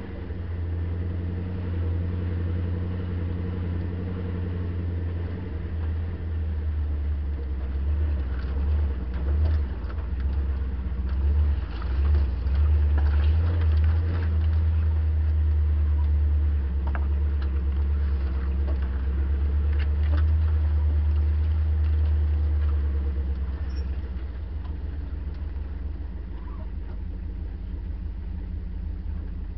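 Land Rover Series 2a engine running as the vehicle drives along a rough bush track, louder for a long stretch in the middle and then easing off. Scattered light knocks and scrapes come through in the middle.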